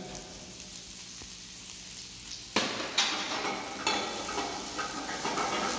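Chopped garlic and celery frying in olive oil in a stainless steel pan. The sizzle jumps suddenly louder about two and a half seconds in as the chopped celery goes into the hot oil, and a metal spoon knocks and scrapes against the pan as it is stirred.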